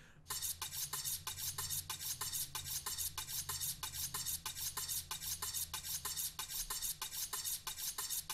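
Kitchen knife honed on a sharpening steel: rapid, even metal-on-metal scraping strokes, about four to five a second, starting just after the beginning.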